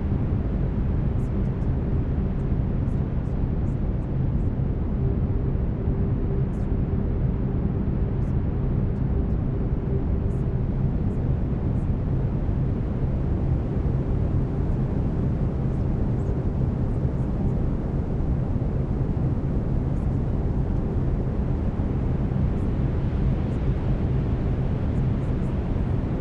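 Steady brown noise, a deep, even rumbling hiss, with faint low steady tones of the binaural beats under it.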